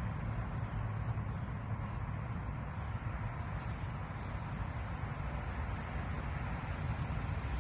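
Steady outdoor background: a constant high-pitched drone over a low rumble, with no single event standing out.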